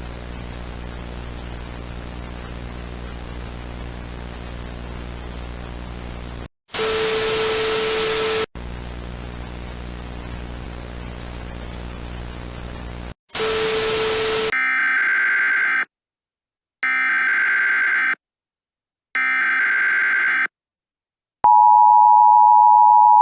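Broadcast static, a steady hiss over a low hum, broken twice by loud bursts of harsher noise. Then come three short, evenly spaced bursts of warbling EAS SAME header data tones, and near the end the Emergency Alert System's steady two-tone attention signal begins.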